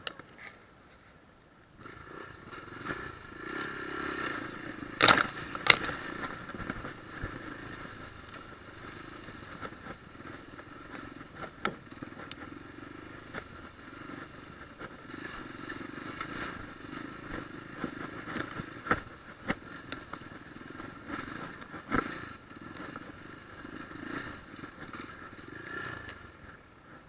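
A small enduro motorcycle's single-cylinder engine running steadily as it rides through tall grass, with sharp knocks and rattles from the bike over rough ground. The engine comes up about two seconds in, and the loudest knocks come about five and six seconds in.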